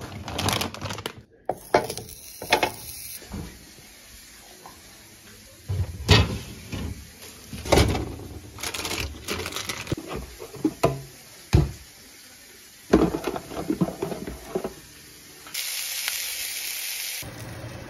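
Knocks and plastic clatter of a freezer and a refrigerator's crisper drawer being handled and opened. Near the end comes a brief steady sizzle of beef patties frying in a pan.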